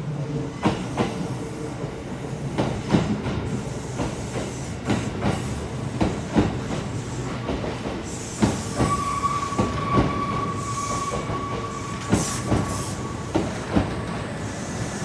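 Kintetsu electric commuter train pulling into a station platform, its wheels clacking over rail joints. About halfway through, a steady high squeal sets in for around five seconds as it slows, with short hisses.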